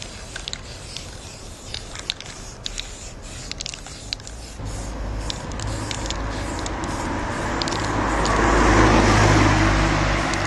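A car passes close by: engine and tyre noise swell from a little before halfway, are loudest near the end, then begin to fade. Before it, short hisses and clicks from a spray paint can.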